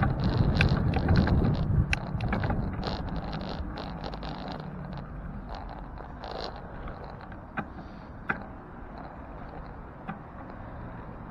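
Wind buffeting the microphone while riding a bicycle, heaviest in the first two seconds and then easing off, over steady road noise, with a few sharp clicks in the second half.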